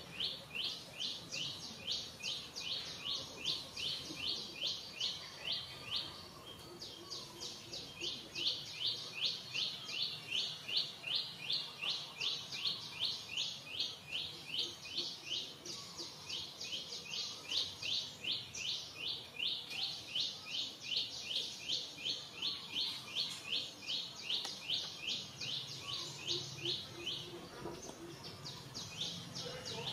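A bird's high chirp repeated about four times a second in long runs, with a few short pauses.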